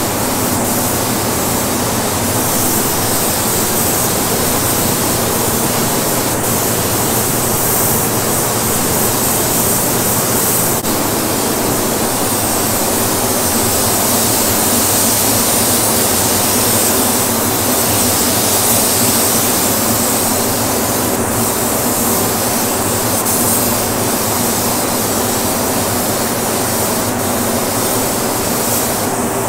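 Compressed air hissing steadily through a gravity-feed spray gun as base-coat paint is sprayed onto a truck cab, over the constant rush of the paint booth's air flow.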